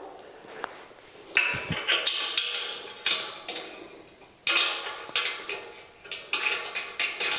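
Light metallic clinking and scraping in several short bursts: a bolt being fitted and threaded by hand into the metal cross brace and base of a gondola shelving upright.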